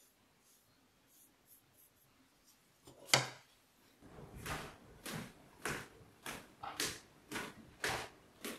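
Footsteps coming down wooden stairs, evenly spaced at about two steps a second. Before them come faint strokes of a brush on a clay plate and one sharp knock about three seconds in.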